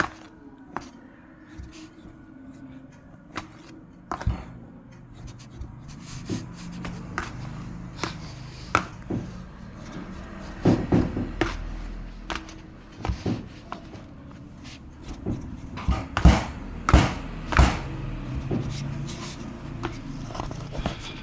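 Large batch of seasoned flour being mixed by hand with simple kitchen tools, the tools scraping through the flour with irregular knocks and clatters against the container. The knocks come thickest about halfway through and again near the end.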